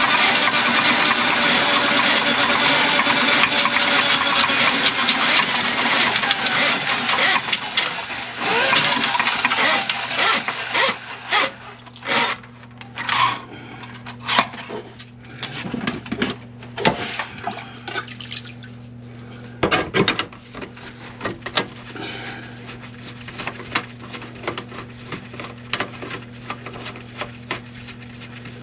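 Electric drain-cleaning machine running loudly, its cable rattling in a grease-clogged kitchen drain line. After about eight seconds it dies down to scattered knocks and clattering over a steady low hum.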